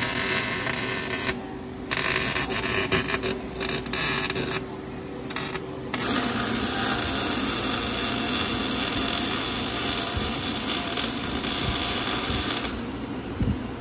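MIG welding arc crackling in short runs with brief pauses, then one long continuous bead that stops near the end. This is reinforcement plates being welded onto the rear subframe mounting area of a BMW E46 M3's floor.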